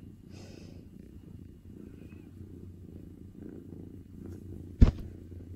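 Young black-and-white kitten purring, a steady low rumble, while being stroked. A single sharp knock sounds a little before the end.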